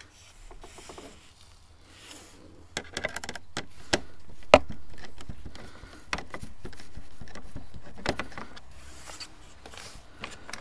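Hands working at the plastic front fairing and wiring of a motorcycle: scattered clicks and knocks over rubbing and rustling, the sharpest knock about four and a half seconds in.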